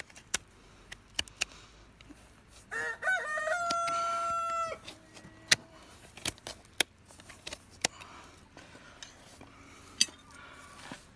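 A rooster crows once, about three seconds in: a call of about two seconds that wavers, then holds one long note and breaks off. Around it come sharp clicks and scrapes of a hoof knife paring a horse's hoof sole.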